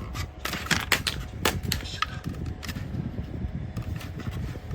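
Irregular sharp plastic clicks and knocks from a small clip-on USB desk fan being handled, several close together in the first two seconds and a few more scattered later.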